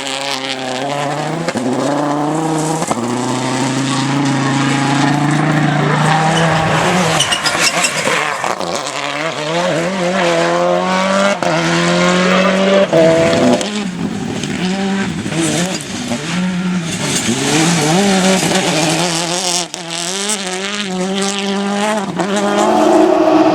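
Rally car engines at full throttle, revs climbing and dropping back at each gear change, with some tyre squeal.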